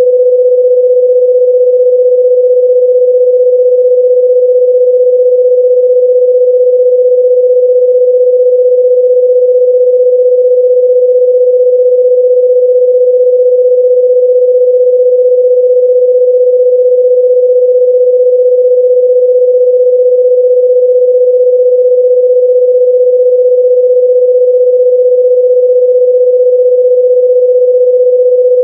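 Loud, steady electronic sine-wave tone at about 500 Hz, a single pure pitch that never wavers.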